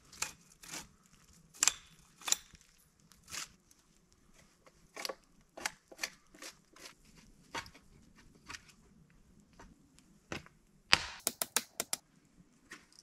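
Knife whittling a wooden spear tip: a series of short scraping cuts at an uneven pace, with a quick run of sharp cracks near the end.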